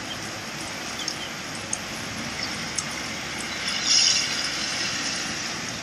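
Steady heavy rain falling on a wet street, with scattered drips ticking close by. A louder hiss swells and fades about four seconds in.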